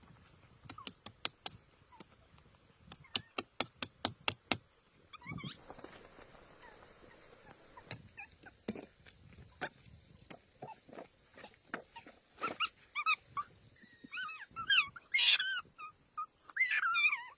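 A run of sharp taps or knocks, then a dog whimpering in high, rising and falling whines over the last few seconds.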